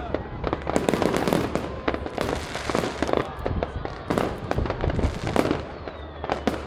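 Aerial fireworks display: shells bursting in a rapid, irregular string of bangs and crackles, several a second, with no let-up.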